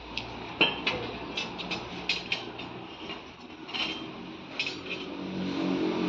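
Irregular sharp metallic clinks and knocks of steel rebar being handled and tied with wire, the loudest knock about half a second in. Under them runs the low hum of an engine, growing louder near the end.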